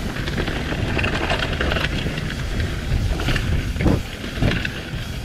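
Mountain bike riding fast down a dirt trail: tyres rolling over dirt and dry leaves, with wind buffeting the microphone. There are a couple of sharp knocks near the end as the bike hits bumps.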